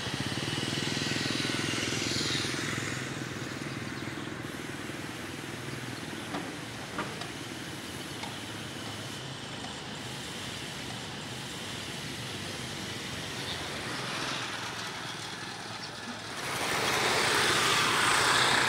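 Road traffic noise, mostly motorbike engines, running steadily and getting louder near the end.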